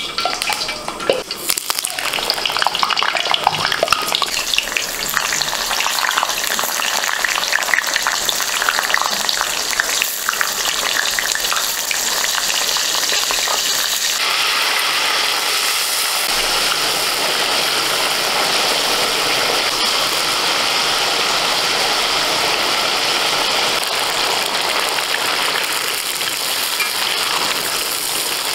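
Pointed gourds (potol) frying in hot refined oil in a large steel karahi: crackling and spattering at first, settling into a steadier, dense sizzle from about halfway through.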